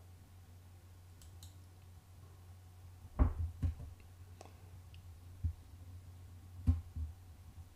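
A handful of sharp computer mouse and keyboard clicks, starting about three seconds in, as a selected part is scaled and moved in a 3D modelling program. A low steady hum runs underneath.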